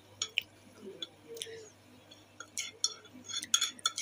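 Metal spoon stirring chocolate mug-cake batter in a ceramic mug, scraping and clinking against the sides, with a quick run of clinks in the last second or so.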